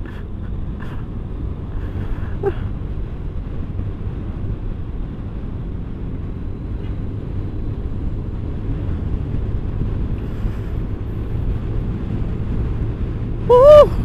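Steady road noise of a motor scooter ride: wind rushing over the microphone with the scooter's engine running at cruising speed. Near the end, one brief loud pitched sound rises and falls.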